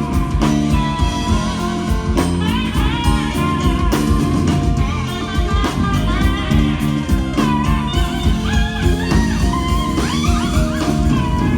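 Live blues band playing: an electric guitar lead with bending notes over bass and drums.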